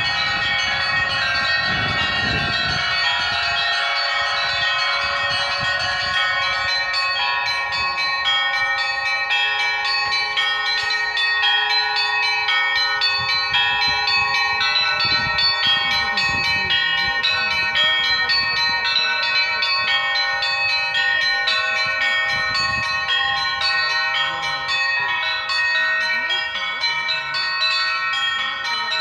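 Russian Orthodox monastery bells ringing together in a continuous peal (perezvon): small bells are struck rapidly and repeatedly over the steady, sustained ringing of the other bells.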